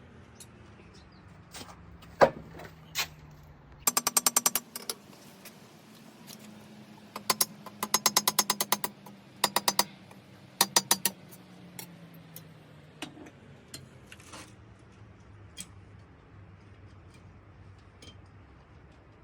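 Hand hammer striking a hot steel bolt on an anvil while forging it into an arrowhead. First come a couple of single heavy blows, then several quick runs of rapid ringing strikes, then a few light taps near the end. A low steady hum runs underneath.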